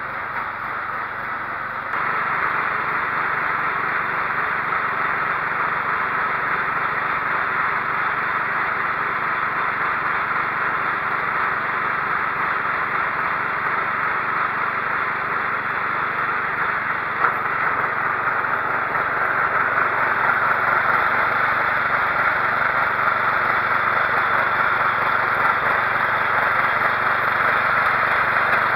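Cub Cadet 1330 lawn tractor's engine running steadily, stepping up in loudness about two seconds in.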